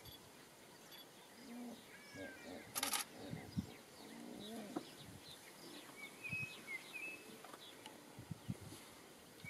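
Wild birds calling: scattered low calls and higher gliding notes, then a high chirp repeated several times in the second half. A single sharp click about three seconds in.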